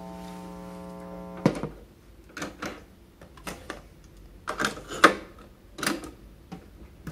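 Sharp GF-A28 boombox's cassette deck being loaded by hand: a string of sharp plastic clicks and clacks as the deck door opens, a cassette goes in and the door is pressed shut. A steady hum stops with the first loud click about one and a half seconds in.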